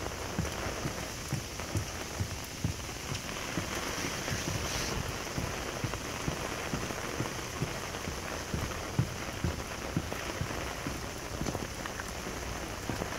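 Steady rain falling, with many small, irregular drop taps close by.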